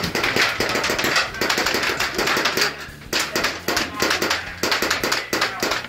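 Airsoft guns firing on full auto: dense, rapid clattering bursts of shots, with a brief lull about three seconds in.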